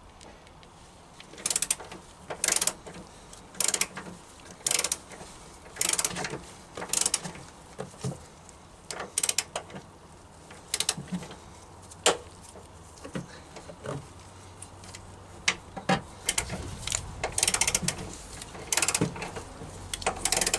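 Socket ratchet clicking in short bursts, about one a second, as the top mounting bolts of a rear shock absorber are wound in.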